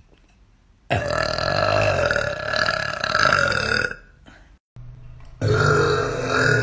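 A girl burping: one long burp of about three seconds starting about a second in, then a second long burp beginning near the end.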